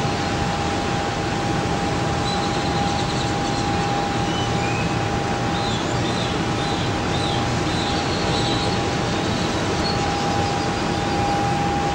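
Steady rumbling hiss with a constant high hum through it and faint short chirps now and then; no bangs or sudden sounds.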